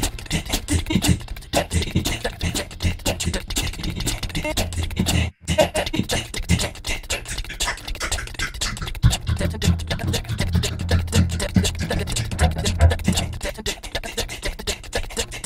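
Background music with a dense, fast percussive beat and a low bass line, cutting out for a split second about five seconds in.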